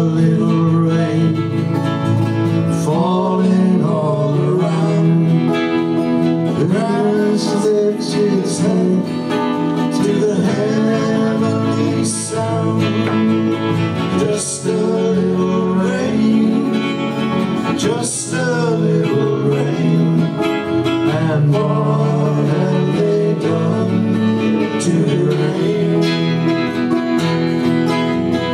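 Two acoustic guitars playing a slow folk song, with a man's voice singing over them.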